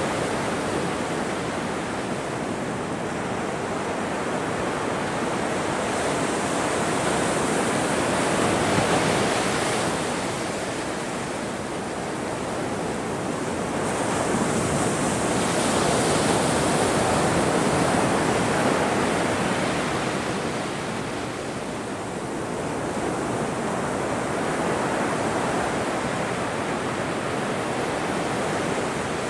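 Ocean surf: waves breaking and washing up the shore in a continuous rush that swells and eases every several seconds, with two louder surges, one about a third of the way in and a longer one past the middle.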